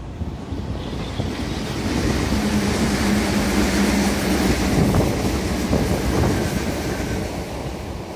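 Red Meitetsu electric local train passing and pulling away. Its running noise swells about two seconds in and eases off near the end, with a steady low hum for a couple of seconds in the middle.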